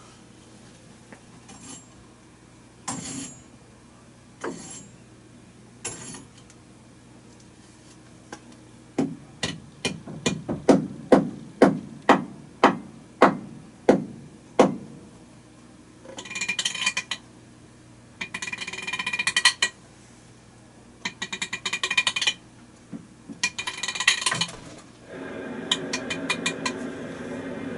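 A sequence of Foley sound effects: a few scattered knocks, then a quick run of about a dozen sharp impacts, then several bursts of rattling and clinking, and a rushing hiss near the end.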